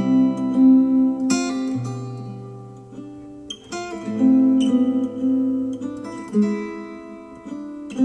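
Instrumental acoustic guitar music played back through Polk Audio R100 bookshelf speakers: plucked, strummed chords ring out and fade, with a new chord struck every second or two.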